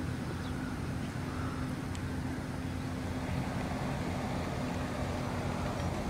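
A motor running steadily: a low drone with a held hum that stops shortly before the end.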